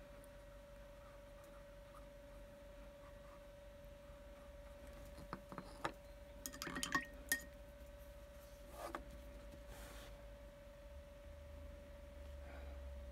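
A handful of light clinks and taps of small hard objects, glass-like, a little before halfway, with one more a couple of seconds later. A faint steady high hum runs underneath.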